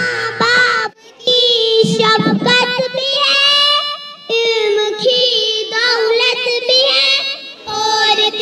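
Young children singing a song into a handheld microphone, with long held notes and short breaks about one second and four seconds in.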